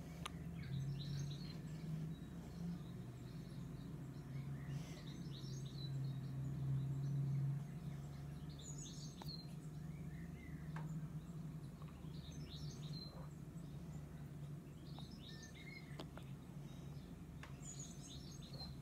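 Small songbirds chirping and calling, played through a TV's speakers, in short bursts of high chirps every few seconds. A steady low hum runs underneath.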